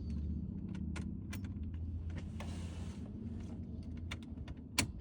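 Car keys clicking and jangling as a key is fitted into a 2011 Ford Focus's ignition lock cylinder: scattered sharp clicks, the loudest near the end, over a steady low hum.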